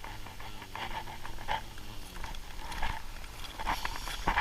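A man's heavy, shaky breathing with low moans, from someone freezing cold and fighting off sleep.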